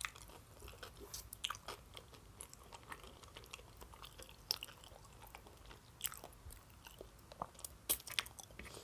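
Close-miked chewing of a mouthful of sushi roll: faint, irregular mouth clicks and smacks.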